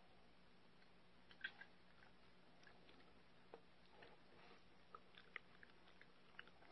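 Faint chewing of an 8-week-old Siberian Husky puppy eating a training treat: a scattering of small crunches and clicks, a little more often in the second half.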